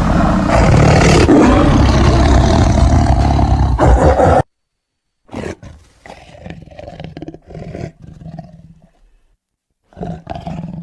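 Deep animal roaring, loud for about four and a half seconds, then cutting off suddenly; after a second of silence come two shorter bouts of lower growling. It is a big-cat or monster roar used as a sound effect.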